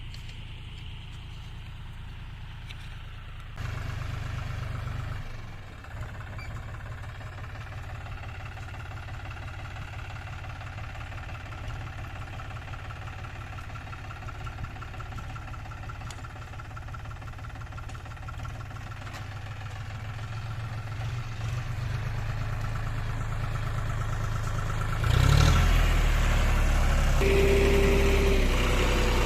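An engine running steadily with a low hum, growing louder near the end with a sudden step up about 25 seconds in.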